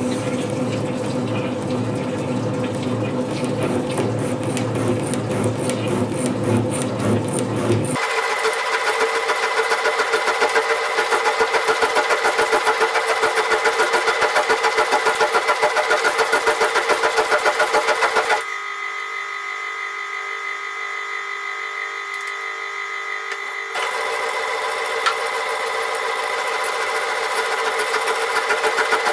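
Small metal shaper running, its ram stroking back and forth in a regular rhythm as the tool cuts gear teeth, with a steady whine from the machine. The tone changes abruptly twice along the way.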